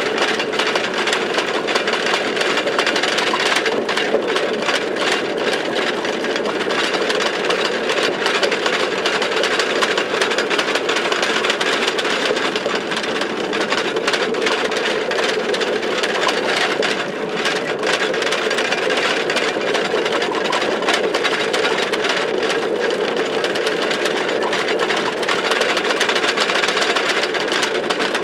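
Small trolley train running along the track, a steady rumble of wheels and cars with continuous rattling and clicking from the running gear.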